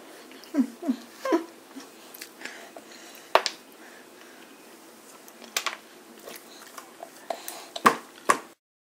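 A baby in a high chair tapping and scraping his hands on the plastic tray while picking up food, with a few short grunts early on and scattered sharp taps, two of them loudest near the end. The sound cuts off abruptly just before the end.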